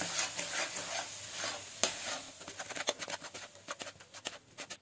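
Metal spatula stirring and scraping a thick ground-seed-and-nut paste around a metal kadhai as it cooks. The scraping strokes grow sparser and quieter in the second half.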